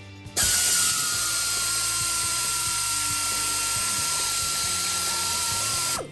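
Cordless electric ratchet running steadily for about five and a half seconds, a high even whine that starts and stops abruptly, spinning out a water pump mounting bolt.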